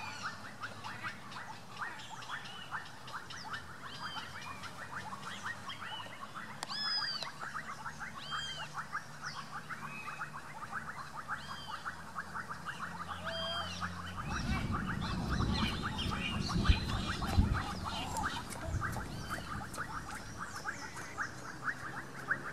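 Outdoor wildlife ambience: a dense chorus of fast, clicking calls runs under short, repeated chirps from small birds. About two-thirds of the way through, a low rumble sets in.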